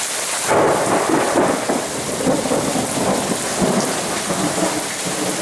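Heavy rain pouring down in a steady downpour, splashing on a waterlogged yard and driveway.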